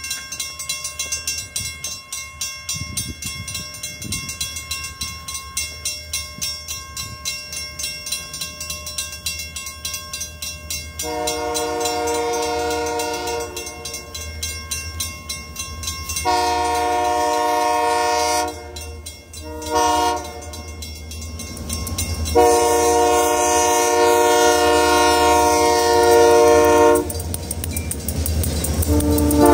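Grade-crossing bell dinging rapidly and steadily. It gives way to a Great Lakes Central diesel locomotive's multi-note air horn sounding the grade-crossing signal: two long blasts, a short one and a long one, over the growing rumble of the approaching engine. Another horn blast starts near the end.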